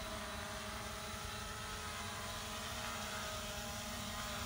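DJI Mini 3 Pro quadcopter's propellers whirring in a steady hum of several high tones as the drone comes down in automatic landing.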